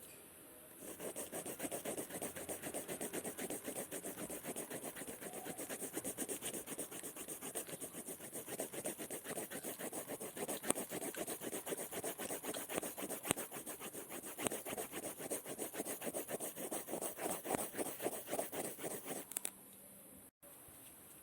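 Scribbling on paper: rapid, rhythmic back-and-forth scratching strokes that begin about a second in and stop suddenly near the end.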